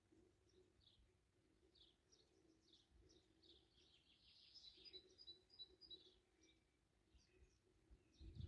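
Faint birdsong from the surrounding trees: scattered short chirps, with a busier run of calls and a brief trill around the middle, over a faint steady low hum. A brief low thump near the end.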